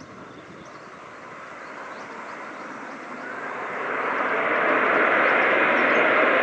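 Airbus A319-111's CFM56 turbofan engines on the landing rollout: a broad jet rush that builds slowly, then swells sharply about four seconds in and holds loud.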